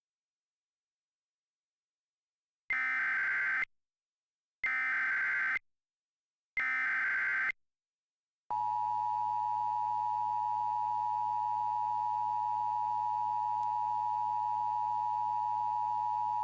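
Emergency Alert System tones: three one-second bursts of SAME header data about two seconds apart, then the steady two-tone attention signal near 1 kHz, held for about eight seconds. It is the signal that precedes a tornado warning.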